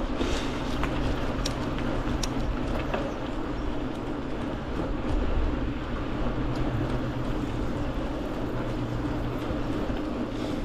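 A mountain bike being ridden on knobby XC race tyres: a steady rolling hum and low rumble, with scattered sharp clicks and rattles from the bike.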